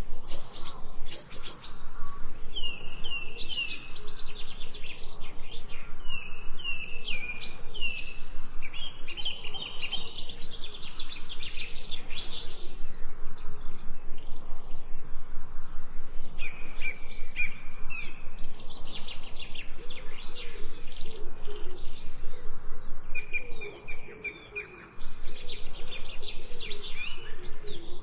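Several songbirds chirping and singing together, in short repeated notes and sliding whistles, with a few lower calls in the second half.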